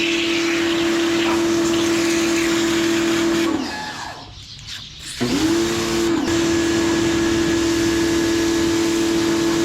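Kawasaki ACK-302 electric pressure washer running with a steady hum and spray hiss; the motor cuts out about three and a half seconds in, then starts again with a brief rising whine about a second and a half later and runs steadily.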